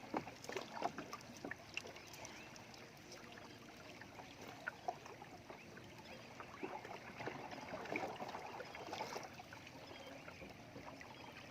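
Light water splashing and dripping around a small boat, with scattered small knocks and clicks.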